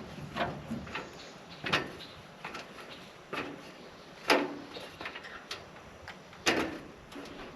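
A series of sharp, irregular knocks and clacks, roughly one a second, the loudest about four seconds and six and a half seconds in.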